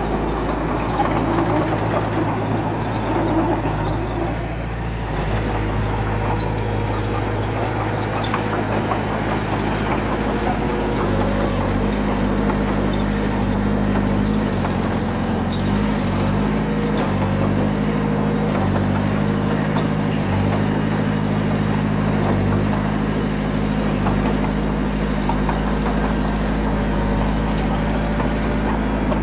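Diesel engine of heavy earthmoving equipment running steadily, its pitch stepping up and down a few times as the load changes, mostly after about ten seconds in.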